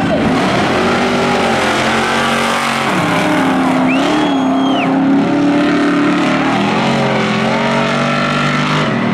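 Two racing vehicles, a sedan and a pickup truck, running hard at high revs, their engine notes stepping in pitch as they shift and pull. A brief high squeal about four seconds in.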